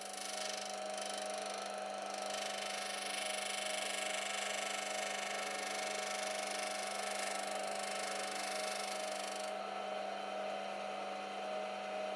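Disc sander running steadily while a small wooden piece is pressed against the disc to sand a 45-degree bevel on it. The sanding noise stops about three-quarters of the way through and the motor keeps running.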